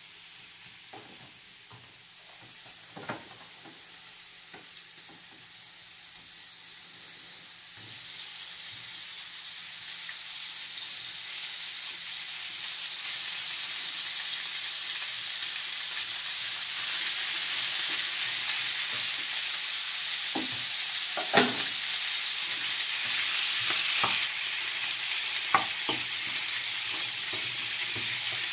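Minced beef frying in olive oil with onions and garlic in a frying pan, a steady sizzle that is faint at first and grows much louder from about eight seconds in as the raw meat goes into the hot pan. A few sharp knocks of a spoon against the pan stand out above it.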